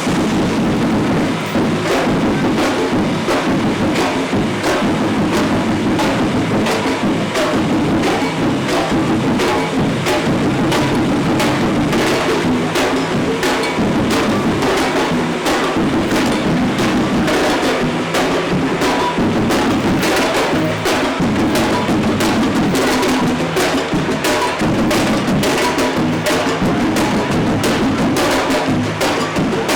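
Parade percussion band playing drums and wood-block-like percussion in a steady beat.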